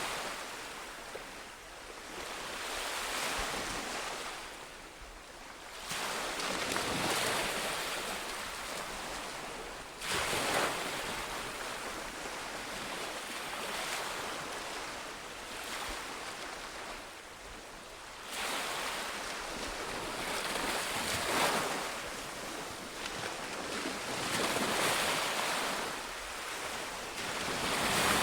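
Ocean surf: waves breaking and washing in, a steady hiss that swells and fades every three to eight seconds.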